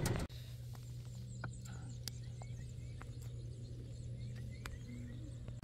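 Steady low hum with scattered light clicks and taps.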